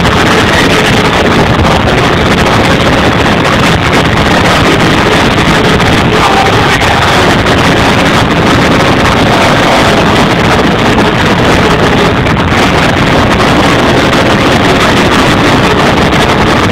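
Loud hardcore dance music over a club sound system, recorded on an overloaded camera microphone so that it comes out as a dense, distorted roar with no clear beat.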